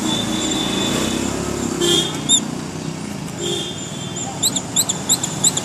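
Steady background noise, then about four and a half seconds in a quick run of short high squeaks, several a second.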